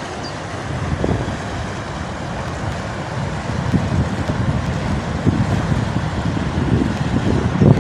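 Wind buffeting the microphone over a low rumble of travel, getting louder and gustier near the end.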